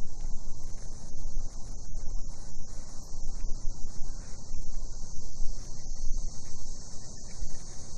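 Cicadas droning in a steady, unbroken high-pitched buzz, over a constant low rumble.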